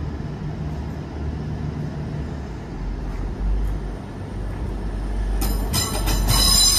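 Class 180 diesel multiple unit pulling away, its diesel engines giving a low rumble that grows louder about three seconds in. About five and a half seconds in, high-pitched wheel squeal starts and becomes the loudest sound.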